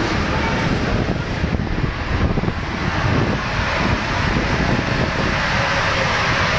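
Wind buffeting the microphone, an irregular low rumble over a steady rushing noise.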